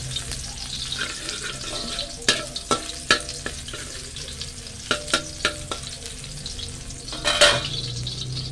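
Garlic frying in oil in an aluminium wok, sizzling steadily while a metal spatula scrapes and taps the pan. Each tap leaves a short metallic ring, and there is a louder rasp near the end.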